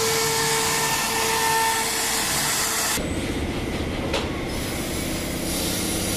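CNC router spindle carving particle board: a steady rushing noise with a high whine on top, the whine fading out shortly before the sound cuts off. About three seconds in, it changes abruptly to a duller, lower steady machine hum, with a single click a second later.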